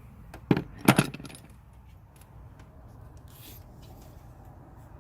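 Pliers and a loosened spark plug clinking as the plug is pulled from its well: two sharp metallic clinks about half a second in and again just under a second in, then a few faint light ticks.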